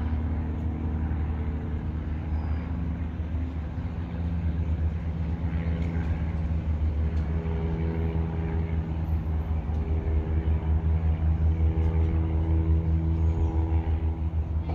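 A steady low engine drone, as from a motor vehicle running, growing a little louder about four seconds in with a rapid flutter.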